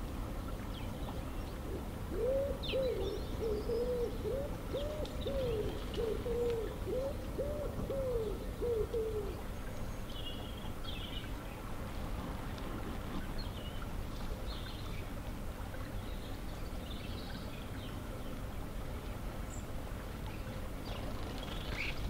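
Wood pigeon cooing: a run of about eight arched low coos over some seven seconds, ending about nine seconds in. Faint high chirps of small birds come and go above it, over a steady low rumble.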